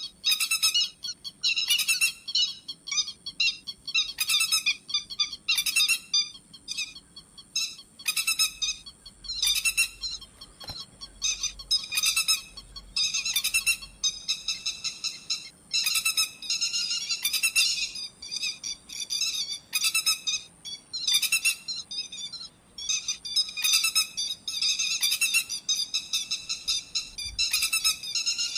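Pacific golden plover calls played as a lure: high whistled calls repeating every second or two, some drawn out into longer runs of rapid notes. A faint steady high-pitched tone sits behind them.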